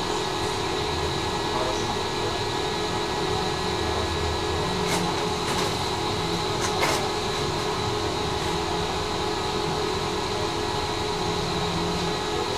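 Tram running along its line, heard as a steady rolling hum with a constant whine. A few sharp clicks come near the middle.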